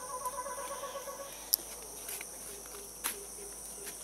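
Insects trilling steadily at a high pitch, with a faint hum fading out about a second in and a couple of small clicks.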